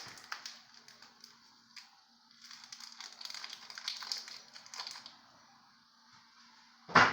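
Ramen seasoning packets rustling and crinkling as they are opened and emptied into the pot, in two spells with small clicks, then one sharp knock near the end.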